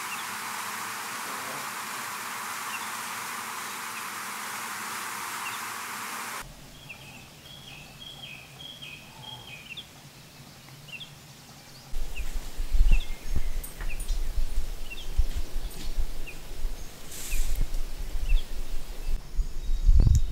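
A steady hiss of noise, then after an abrupt change a quiet forest with songbirds giving short repeated chirps. From about twelve seconds in, low gusty rumbling rises under the birdsong and becomes the loudest sound.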